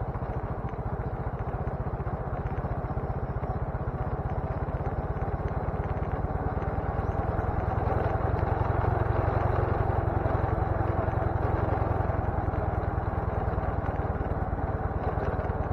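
Motorcycle engine running as the bike rides along, a steady fast pulsing that grows a little louder about eight seconds in.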